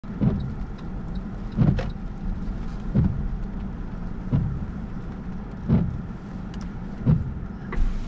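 Windshield wipers sweeping a rain-wet windshield, a short swish and thud about once every second and a half, heard from inside the cabin of a slow-moving electric car over a steady low hum.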